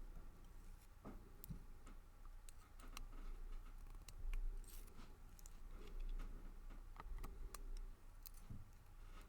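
Faint, irregular small metallic clicks and taps from handling the pins, springs and tools while reloading the pin chambers of a brass padlock.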